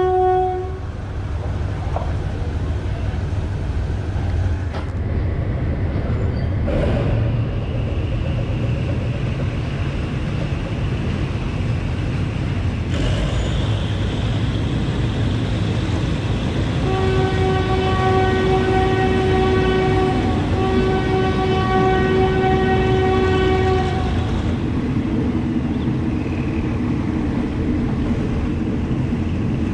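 Train running with a steady low rumble. A horn blast ends within the first second, and about two-thirds of the way through the horn sounds again in one long blast of several seconds, broken once briefly.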